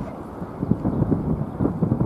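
Strong wind buffeting the microphone: a gusty, irregular low rumble, easing briefly at the start and then picking up again.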